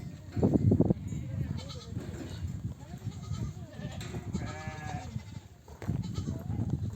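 A flock of sheep bleating, mother sheep and lambs calling back and forth, with one clear drawn-out bleat about four and a half seconds in. A loud low rumbling noise comes in the first second.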